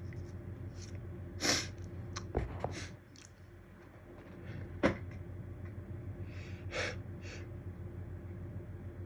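A person's sharp gasping in-breaths and sniffs while working up to a sneeze that won't come, with a brief sharp catch about five seconds in. A low steady hum runs underneath.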